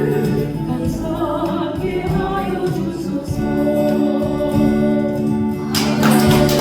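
A Korean gospel song sung over an accompaniment track, the voice and chords holding long notes toward the close of the song. The accompaniment turns brighter and hissier about six seconds in.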